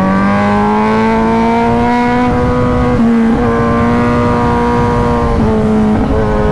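Kawasaki Z1000's inline-four engine running hard at speed, its note held steady and slowly climbing in pitch, with brief dips about three and five and a half seconds in. Wind rumbles over the microphone underneath.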